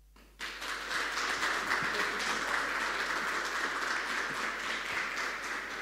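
Audience applauding: many hands clapping, starting suddenly about half a second in and tapering off near the end.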